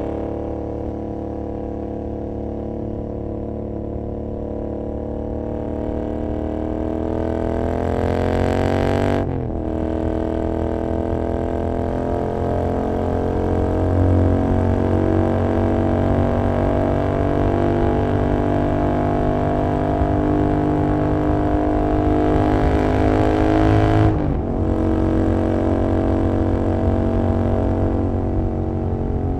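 Royal Enfield Continental GT 650's parallel-twin engine running through an Emgo Hooligan exhaust with the dB killer removed, pulling at highway speed. The pitch climbs for about nine seconds, drops at an upshift, rises slowly again, then drops at a second upshift about two-thirds of the way through.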